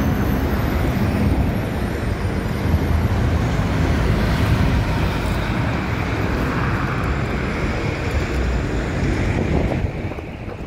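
Road traffic passing close by, a steady mix of engine and tyre noise, with wind rumbling on the microphone. The sound drops away near the end.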